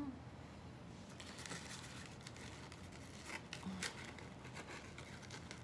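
Faint rustling and crinkling of paper packaging, with a few short crackles, as a card and string are worked out of their wrapping.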